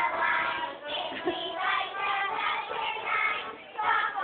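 A group of young children singing together, accompanied by a piano accordion.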